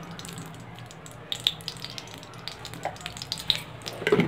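Ghee melting and sizzling lightly in a hot kadhai, with scattered small crackles and a louder knock near the end.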